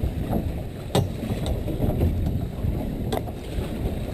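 Steady low rumble on board a small boat at sea, with wind on the microphone, and two sharp knocks: one about a second in, the other a little after three seconds.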